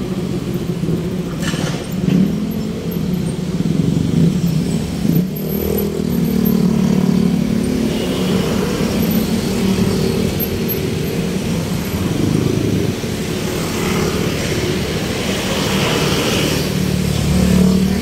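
Motor vehicle engines and road traffic running continuously, the engine note swelling and fading as vehicles pass or change speed.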